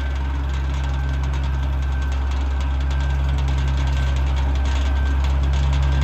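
Oliver 77 tractor's six-cylinder engine running steadily, driving the flat belt and spinning the circular sawmill blade free after a cut, with a constant low hum and a fine rapid ticking.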